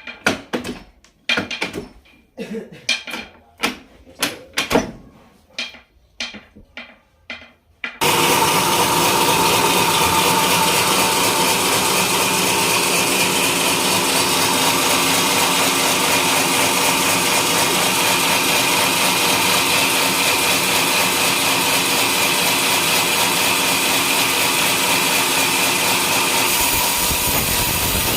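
A homemade sawmill sawing a coconut-palm trunk: after several seconds of scattered short sounds, the saw starts abruptly about eight seconds in and runs loud and steady with a high whine through the wood.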